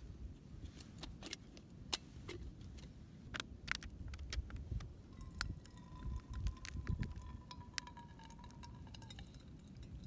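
Light metallic clinks and clicks as a plastic bottle with a screw-on water filter is handled and water is poured through it into a stainless steel cup. A faint steady ringing tone runs from about five seconds in to about nine seconds in while the water runs into the cup.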